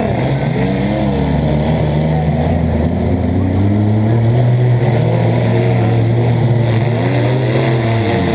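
A compact demolition-derby car's engine revving under load, heard from inside the car: the pitch surges up and down about a second in and again near the end, holding steadier in between.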